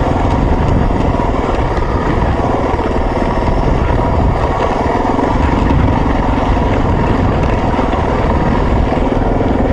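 Off-road motorcycle engine running at a steady riding pace, with the rumble of the bike travelling over rough dirt trail, picked up by a bike-mounted camera.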